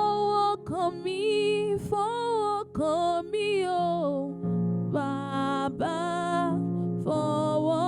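Slow worship song: a solo voice sings drawn-out phrases with a wavering pitch over soft, sustained keyboard chords.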